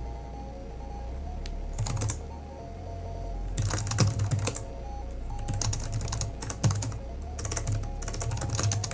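Computer keyboard typing in four quick bursts of keystrokes, the first short and the rest longer, over background music.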